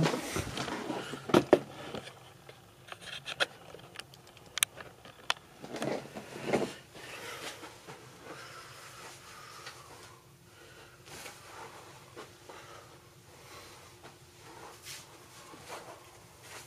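Knocks and clicks of a camera being handled and set in place, loudest in the first two seconds, with a few more clicks and some shuffling up to about seven seconds in, then quiet room tone.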